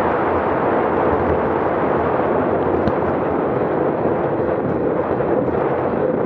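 Wind buffeting a bike-mounted camera's microphone on a descent at about 28–30 mph: a loud, steady rush of noise with no let-up.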